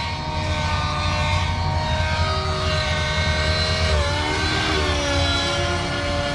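Nitro RC helicopter's OS 55 glow engine with tuned power boost pipe running at high head speed as it lifts off and climbs, along with the whir of its rotors. The engine is tuned a little rich and fully warm. Its pitch dips briefly about four seconds in under load, then steadies.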